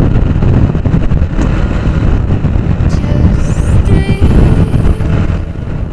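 Hero HF Deluxe motorcycle's 97cc single-cylinder engine running on the move, under a heavy low rumble of wind on the microphone. Faint background music starts to come in near the end.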